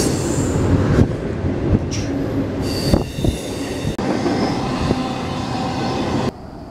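Intermodal freight train's loaded container and trailer cars rolling past below, a steady loud rumble of wheels on rail with a few clacks and high wheel squeal. The noise drops away suddenly near the end as the last car goes by.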